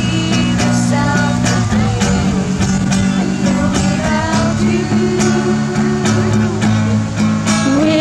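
Acoustic guitar strummed in a steady rhythm while a small group sings along.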